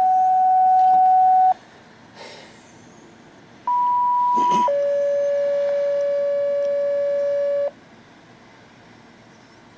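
Two-tone sequential paging tones from a police and fire radio scanner. A held tone ends about a second and a half in. Then, after a short gap, a higher tone sounds for about a second and steps straight down to a lower tone held for about three seconds: a dispatch alert sent out over the scanner as the tornado warning comes in.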